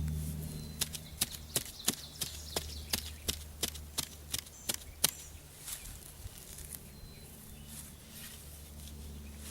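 A hand tool chopping into the ground to dig up a wild carrot root: about a dozen sharp strikes, roughly three a second, stopping about halfway through, then a few fainter scrapes.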